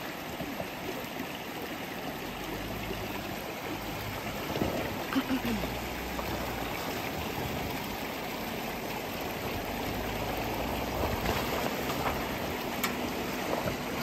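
Shallow creek running over rocks, with a Jeep Wrangler's engine running at low speed underneath as it drives through the water and climbs out onto the bank.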